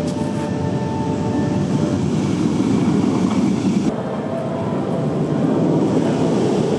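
Intamin steel roller coaster train on a test run, rumbling along its track. The rumble swells and changes abruptly about four seconds in.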